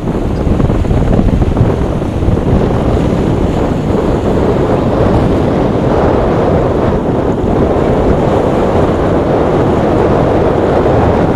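Wind blowing hard across the microphone over the wash of waves and surf, a steady rushing noise with no clear engine note standing out.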